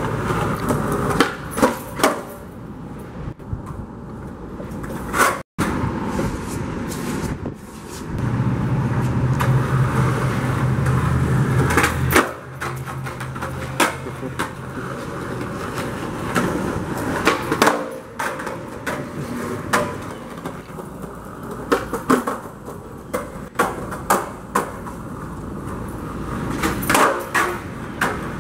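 Skateboard wheels rolling on concrete, with many sharp clacks as the board's tail pops and the deck lands back on the ground. A low steady hum runs for a few seconds in the first half.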